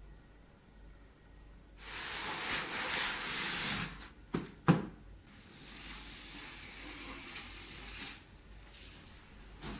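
Handling noise: about two seconds of rustling, then two sharp knocks in quick succession, then softer rustling.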